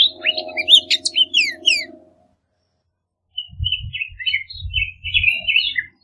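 Bullock's oriole singing a short phrase of quick sweeping whistled notes, with a low steady hum beneath. After a brief silent gap, it gives a run of rougher, scratchier notes over low thumping noise.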